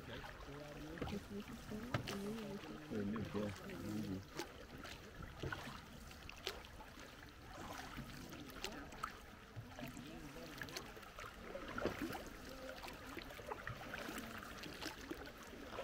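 Small hand-rowed boat moving over calm water: soft splashes, drips and knocks from the oars, with the water lapping around the hull.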